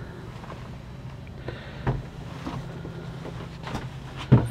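Dull knocks and bumps from a handheld camera being moved about a small yacht cabin, the loudest near the end, over a steady low hum.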